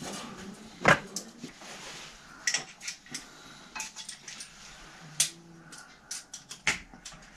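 Small steel bearing balls clicking and clinking against metal as they are set one by one into a kids' bike freewheel, packed tightly together. Irregular sharp ticks, the loudest about a second in and again a little after five seconds.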